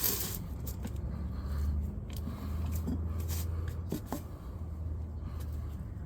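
A tire being worked onto a mini bike rim with screwdrivers: scattered scrapes and short clicks of tool and rubber against the rim, the sharpest click at the very start. A steady low hum runs underneath.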